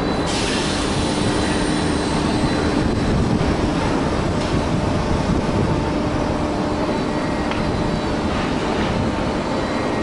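Steady, loud mechanical rumble of the crane machinery working a 12 m³ clamshell grab in a coal hold, with a short hiss about half a second in.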